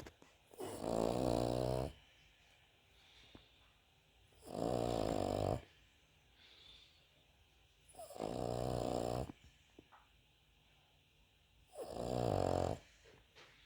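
Cavalier King Charles Spaniel snoring, much like a person: four loud buzzing snores of about a second each, coming roughly every four seconds, with quiet breathing between.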